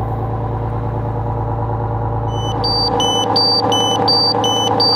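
Fire truck's diesel engine idling steadily. About two and a half seconds in, a portable four-gas meter held at the exhaust starts alarming with alternating high and low beeps, a warning of dangerous gas levels such as high carbon monoxide in the diesel exhaust.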